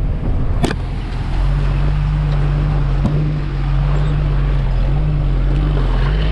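Bus engine running steadily under load on a rough rocky road, heard from inside the cabin, its low hum wavering slightly in pitch over a rumble from the road. Two sharp knocks from the cabin, about a second in and again about three seconds in.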